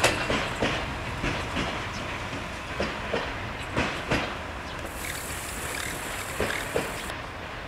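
Passenger railcar pulling away, its wheels clacking irregularly over rail joints and points above a low running rumble.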